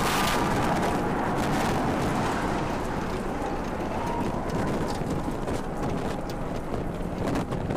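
Rumble and crackle of the 33 Raptor engines on SpaceX's Super Heavy booster as Starship climbs after liftoff. The rumble is steady and eases slightly toward the end.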